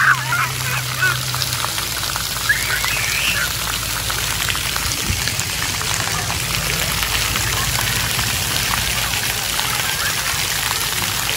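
Splash pad water jets spraying and falling onto the wet play surface, a steady hiss of water. A child's short squeals come near the start and again about two and a half seconds in.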